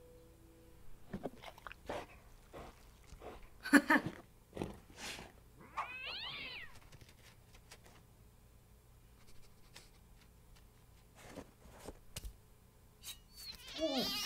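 A small kitten's cries: one bending, wavering meow about six seconds in and another near the end, with scattered sharp knocks and clicks in the first few seconds.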